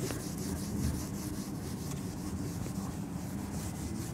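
A whiteboard being wiped clean by hand with rapid back-and-forth rubbing strokes, a rhythmic swishing of about three to four strokes a second.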